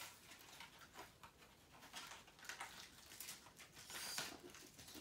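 Faint rustling and crinkling of a calculator's cardboard and plastic packaging being handled and opened, with scattered small ticks and a slightly louder rustle near the end.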